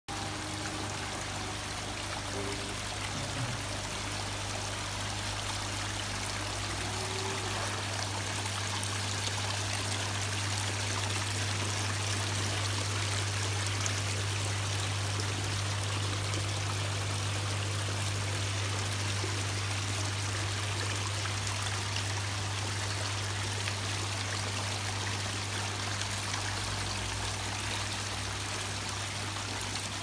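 Large multi-tier rock-style waterfall fountain running: water trickling and splashing steadily down several cascading tiers into its basins, with a steady low hum underneath.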